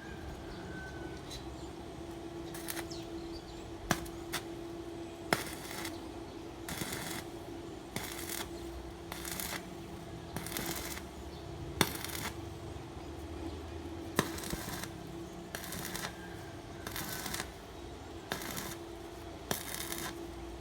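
Arc welding in short repeated bursts of crackling hiss, roughly one a second, with a few sharp metallic clicks between them over a steady hum.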